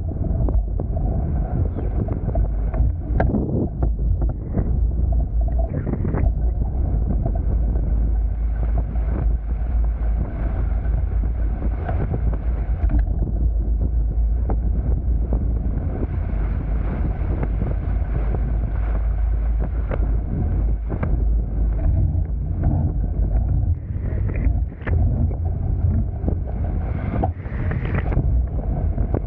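Wind buffeting the camera microphone over the steady rush of water along the hulls of a Hobie Tiger F18 catamaran under sail, with occasional short splashes.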